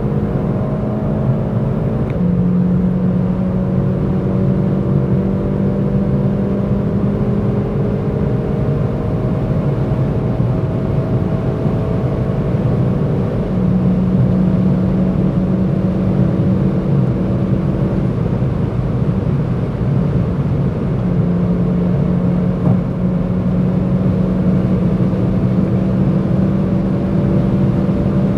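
Hyundai i30 N's turbocharged 2.0-litre four-cylinder engine pulling hard at high autobahn speed, with heavy wind and road noise. Its pitch steps down slightly about two seconds in, then climbs slowly.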